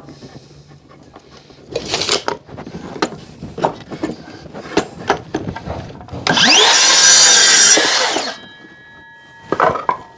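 Timber being knocked and handled, then a power saw cutting through a piece of timber for about two seconds. The cut stops sharply and the blade rings briefly as it winds down.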